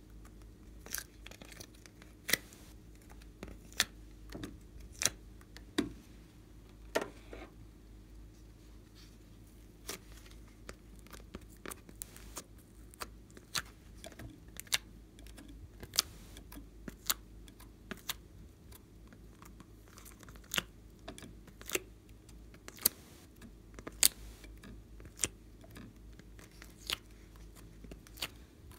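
Sharp clicks and taps, irregular and about one a second, from a plastic mould tray and the small clay shapes being pushed out of its cups and set into a glass dish.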